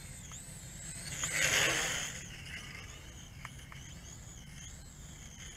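Faint high whine of the JJRC H11WH quadcopter's motors and propellers in flight, its pitch wavering up and down as the throttle changes. A brief swell of rushing noise comes about a second in.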